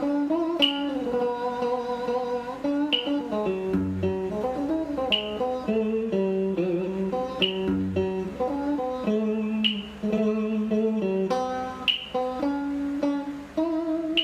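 Electric guitar playing a slow melody note by note, with bent and sliding notes. A sharp tick sounds about every two and a quarter seconds.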